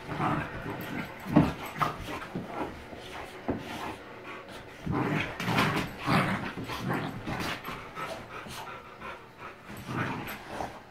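A mother dog and her puppy play-wrestling: irregular bursts of dog noises and scuffling on the floor, with one sharp knock about a second and a half in.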